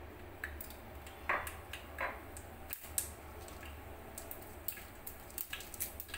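Mustard seeds sizzling in hot coconut oil in a pan and beginning to splutter: scattered, irregular small pops and crackles.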